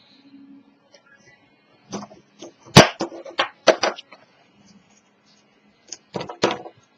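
Handling noise from taping a chipboard piece on a cutting mat: several sharp taps and knocks, the loudest about three seconds in, and two more close together near the end.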